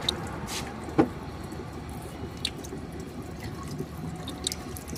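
Water dripping and splashing around the radiator as the Chevy Cruze cooling system is filled to bleed out trapped air. There is a sharp knock about a second in, then a few scattered drips.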